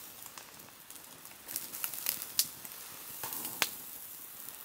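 Charcoal grill fire crackling under a wire basket of shrimp, with a cluster of sharp pops in the middle and one more later on. The fire is burning too hot for grilling.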